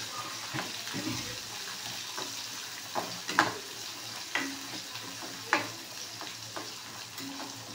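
Small onions (shallots) and green chillies sizzling in hot oil in a kadai as they are sautéed, with a spoon scraping and knocking against the pan as they are stirred. The sharpest knocks come about three and a half and five and a half seconds in.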